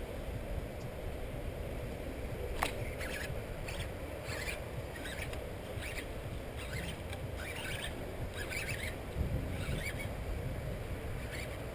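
Wind rumbling on the microphone, with one sharp click about two and a half seconds in. After it comes a string of short scratchy bursts about every half second, as a Shimano Calais DC baitcasting reel is cranked in spurts while a hooked bass is played.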